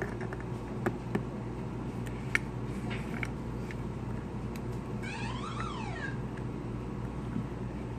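A few small metallic clicks from coil leads being tightened on a rebuildable dripping atomizer deck, over a steady low hum. About five seconds in, one short pitched call rises and then falls.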